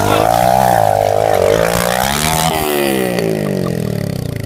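Small dirt bike engine revving, its pitch swinging up and down several times.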